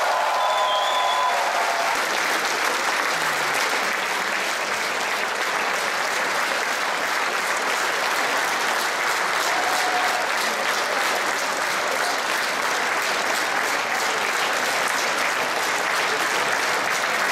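Large audience applauding steadily. The last held note of the male choir dies away in the first second or two.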